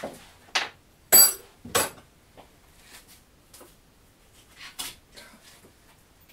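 Metal tools or parts clinking and clanking in a few sharp separate knocks. The loudest comes about a second in and rings briefly, with fainter clicks later on.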